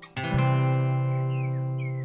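Music: a strummed acoustic guitar chord struck just after the start, ringing on and slowly fading, with a few faint short whistle-like glides over it in the second half.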